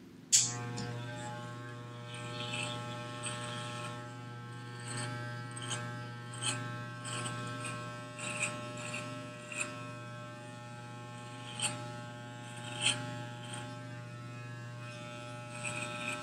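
Corded electric hair clippers switched on just after the start and buzzing steadily, with brief sharper crackles now and then as the blades cut into the hair.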